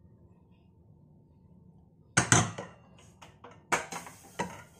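Steel spoon knocking and clinking against a wire-mesh strainer and steel bowl as boiled macaroni is tipped in: two sharp knocks about two seconds in, then a handful of lighter clinks.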